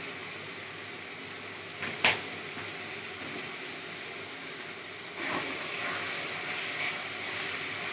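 Tomato-and-spice masala frying in an aluminium kadai on a gas burner: a steady sizzle, with one sharp knock about two seconds in. The sizzle gets louder from about five seconds in as a metal spatula stirs the pan.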